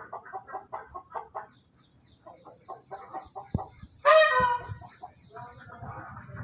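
Poultry calling: hens clucking in quick, short repeated notes, with a run of faint high peeps, and one loud drawn-out call about four seconds in.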